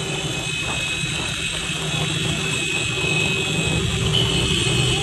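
Several small motorcycles running at speed close by, a continuous low rumble of engines and road noise, with a steady high-pitched tone over it throughout.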